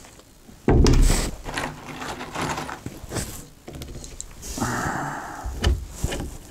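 Knocks and clicks of a Ryobi cordless drywall screw gun being handled while its depth-setting nose cone is turned to set a deeper screw depth. A steady noise lasts about a second near the end as the gun is brought to the drywall.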